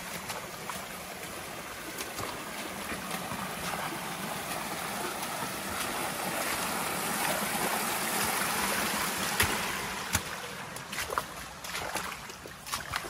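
A shallow stream running over a small cascade, with wellington boots splashing through the water. The water sound swells and then fades towards the end, when a few sharp knocks of footsteps come through.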